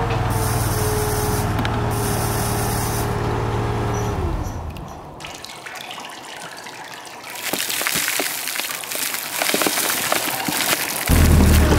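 Drilling rig machinery running with a steady hum and a held whine that winds down and stops about four seconds in. After a quieter stretch, water gushing and dripping starts as groundwater leaks through the pit wall. Music comes in just before the end.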